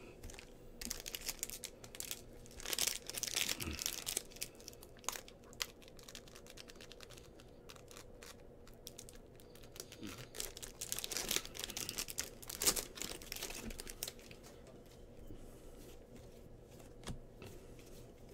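Wrapper of a 2022 Bowman Baseball trading-card pack being torn open and crinkled by hand, in two spells of crackly rustling.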